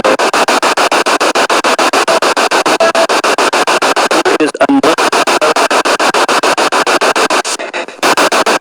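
Spirit box radio scanning rapidly through stations: static chopped into quick even pulses, about eight a second, cutting out briefly near the end.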